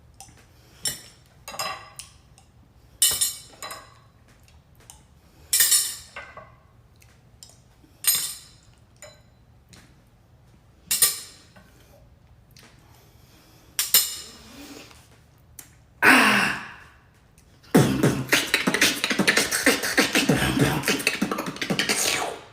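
A beatboxer making single mouth-percussion sounds spaced a couple of seconds apart. About eighteen seconds in, this turns into a fast, continuous beatbox run that cuts off suddenly.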